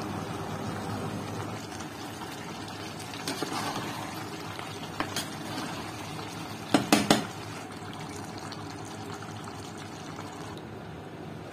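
Mutton and potato curry simmering in a pot on the stove, with a metal slotted spoon stirring and scraping through it. About seven seconds in, a quick run of three or four sharp metal knocks, the spoon striking the pot, is the loudest sound.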